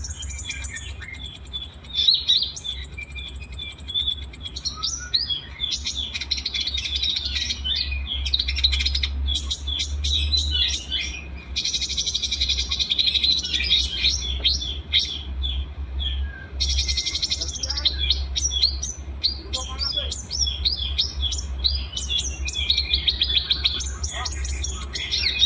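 A combination of small songbirds singing, a dense, unbroken mix of high chirps, twitters and trills from several overlapping birds. A steady low hum runs underneath.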